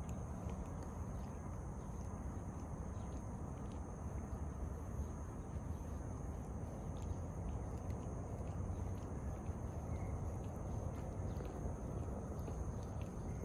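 Cat licking its fur and paw close up: a scattered run of small soft clicks from its tongue, over a steady low outdoor rumble and a thin, steady high-pitched whine.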